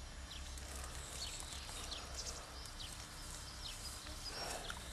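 Faint outdoor garden ambience: short, high bird chirps scattered throughout over a low, steady hum, with a brief rustle near the end.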